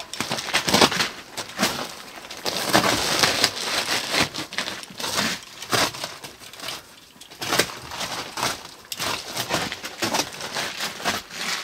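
Plastic sheeting on bags of rotted-straw mushroom compost crinkling and rustling irregularly as it is pulled and torn open by hand.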